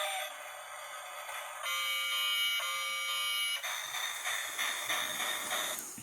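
Electronic sound effects from a toy steam train set's small built-in speaker: steady beeping tones that change in steps, then from about three and a half seconds in a rhythmic pulsing sound.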